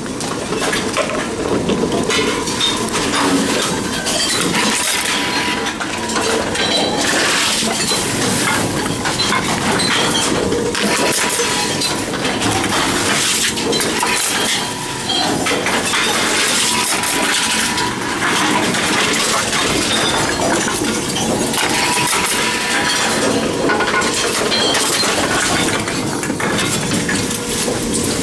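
Continuous rattling and clinking of empty cans and bottles being taken in, moved along and crushed inside Envipco CF-1500 reverse vending machines, with many sharp knocks throughout.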